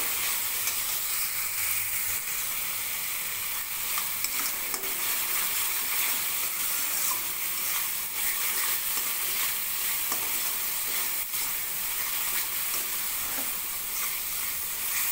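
Spice paste of onion, garlic, ginger and chilli sizzling as it fries in hot oil in a metal kadai, stirred and scraped with a spatula, with a few light ticks of the spatula against the pan.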